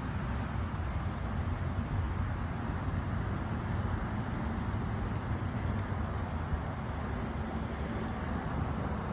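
Steady low outdoor rumble with no distinct sounds standing out.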